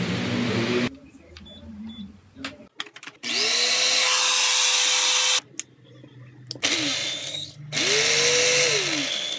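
Electric blender motor switched on three times in short runs, the second one brief: each time its whine rises as it comes up to speed, holds steady and falls away as it is switched off.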